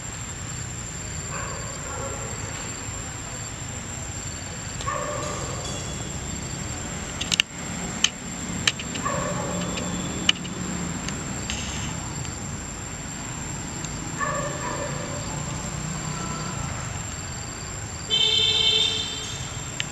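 Steady low hum with a thin high whine over it, a few sharp clicks in the middle, and a loud, steady horn-like toot lasting about a second and a half near the end.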